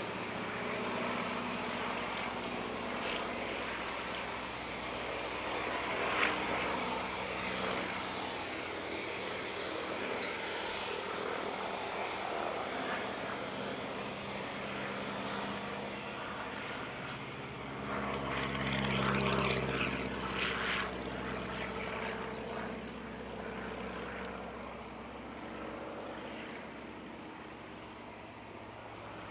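A VL Viima II biplane's Siemens-Halske Sh 14 seven-cylinder radial engine and propeller running steadily in flight. The sound swells to its loudest about two-thirds of the way through as the plane passes closest, then slowly fades.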